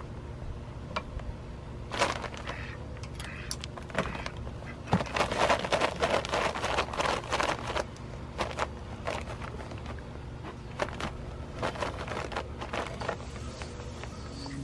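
Crackling and rustling of a plastic feed bag used as a killing cone as a duck flaps and convulses inside it after the neck cut, in irregular bursts, heaviest from about five to eight seconds in, over a steady low hum.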